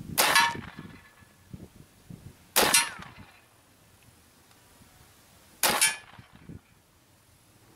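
Three shots from a .45 caliber semi-automatic big-bore air rifle, about two and a half to three seconds apart, each with the metallic clang of the lead bullet striking a thick aluminum transmission pan.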